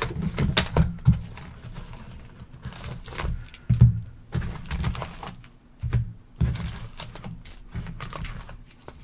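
Trading-card hobby box and packs being handled and opened on a table: irregular knocks and taps with rustling between them.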